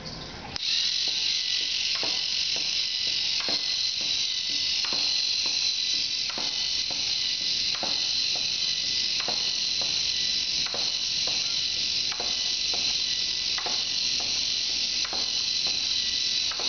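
K'nex Robo-Strike robot scorpion's small battery motor and gear drive switching on about half a second in, then running with a steady high-pitched whine as it walks. A light click comes about every three-quarters of a second.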